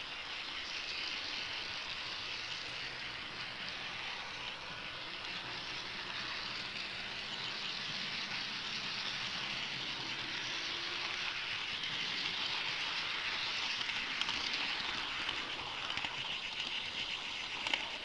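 HO-scale model train rolling along its track, a steady high-pitched rush of wheels on rails that grows a little louder, with a few sharp clicks near the end.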